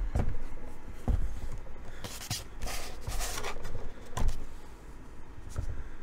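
Handling noise from the plastic mini fridge being turned and steadied by hand on a tabletop: a few dull knocks, and a scraping rustle about two to three seconds in.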